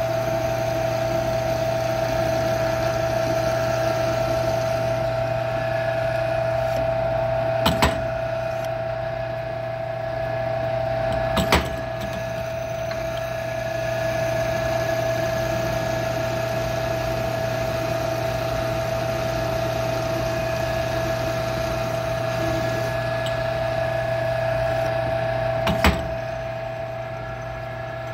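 Small metal lathe running steadily with a constant whine and low hum while a jobber-length twist drill in the tailstock chuck bores into the spinning shaft. Three sharp clicks break in, about eight, twelve and twenty-six seconds in.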